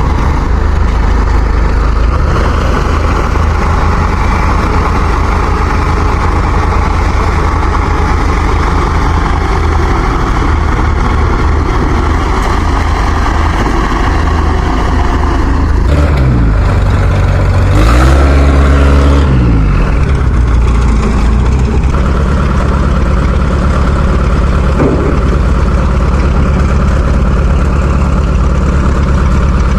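A heavy farm machine's engine running hard. About sixteen seconds in, its pitch dips and climbs back up with a surge in loudness, then it settles to a steadier run.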